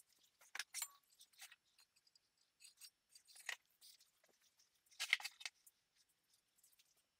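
Near silence broken by a few faint, short clicks and rustles of small things being handled, in three little clusters: just under a second in, at about the middle, and near the end.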